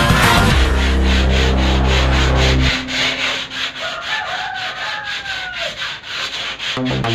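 A wooden door being scrubbed or sanded by hand, in quick, even back-and-forth strokes, as it is cleaned for painting. Background music holds steady notes over the first two and a half seconds, then stops, leaving the rubbing alone.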